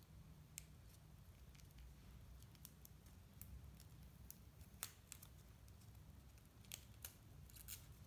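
Near silence with faint scattered clicks and rustles of hands handling a small folded yellow card piece and jumper wires; the loudest click comes about five seconds in, with a cluster near the end.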